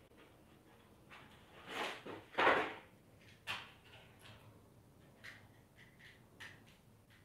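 Rustling and scraping noises from something being handled: two louder rustling scrapes about two seconds in, then a few scattered light clicks and taps.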